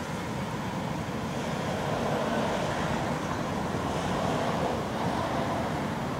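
Steady rushing background noise with a low rumble, a little louder after about two seconds.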